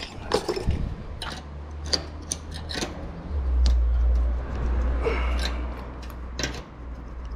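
Hand work on a motorcycle muffler joint: scattered light metal clicks and scrapes as the petals of a new exhaust seal are spread and worked into place. A low rumble runs underneath, louder from about halfway through.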